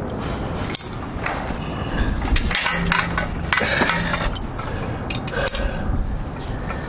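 Hands working on motorcycle parts around the engine: scattered small metal clinks, knocks and rattles as parts are handled and worked loose.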